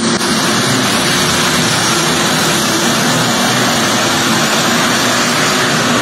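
Competition pulling tractor's engine running at full throttle during a pull, loud and steady.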